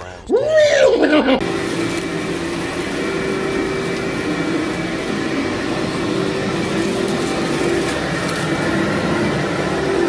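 Upright vacuum cleaner running steadily as it is pushed over a filthy carpet, with a steady hum over the noise of its suction. A brief swooping rise-and-fall sound comes just before it.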